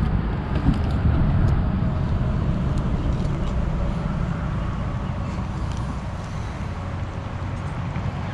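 Steady low rumble of highway traffic crossing the bridge overhead, with a few faint clicks from handling the fish and rod.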